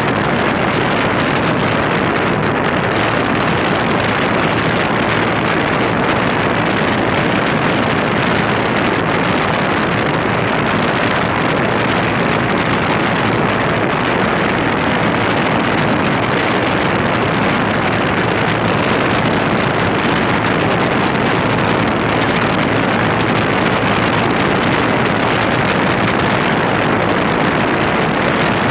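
2008 NuTone 2.5-ton heat pump outdoor unit running close by, its condenser fan and compressor making a steady, even whoosh and hum.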